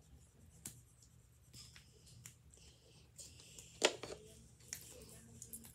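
Handling noises: scattered small clicks, taps and rustles from hands working with small plastic items and pens, with one sharper click a little under four seconds in.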